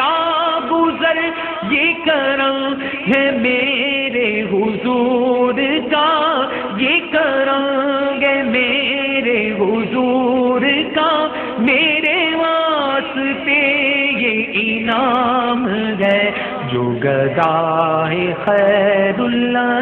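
A man singing an Urdu naat in a slow, melismatic style, with long wavering held notes that glide between pitches.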